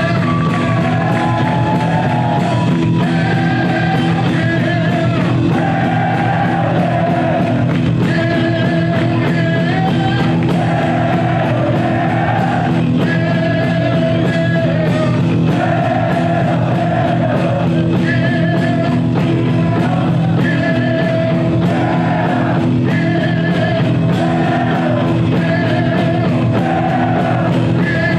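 Heavy metal song with sung vocals over distorted guitars and a steady drumbeat, played loud and without a break.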